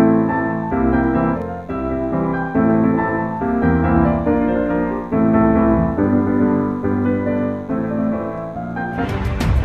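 Background piano music: sustained chords changing about once a second. Near the end a steady beat with percussion comes in.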